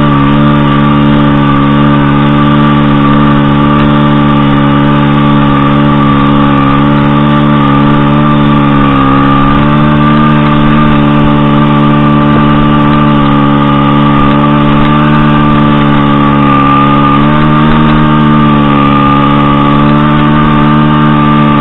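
Motorcycle engine held at high, steady revs through a long circle drift on sand, dipping slightly twice.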